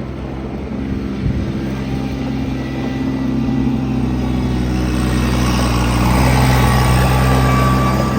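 Kubota LX2610 compact tractor's three-cylinder diesel engine running steadily, growing louder about halfway through as it works harder, with a faint higher whine near the end.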